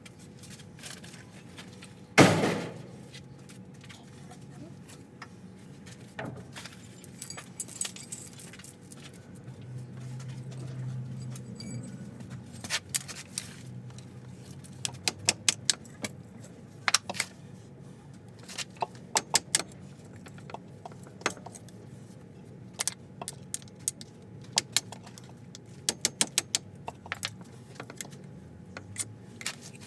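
Metal tools and parts clinking and tapping: a loud metallic clank with a ringing decay about two seconds in, then many short clicks and clinks, singly and in quick runs.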